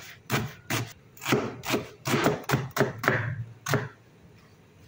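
Knife chopping onions, about ten quick chops at an uneven pace that stop shortly before the end.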